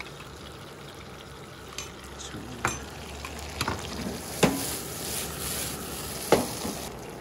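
Cherry tomato and black olive sauce sizzling in a non-stick frying pan as it is stirred with a metal spoon, the sizzle growing louder from about two seconds in. Several sharp clinks of the spoon come through it, the loudest about four and a half seconds in and another near the end.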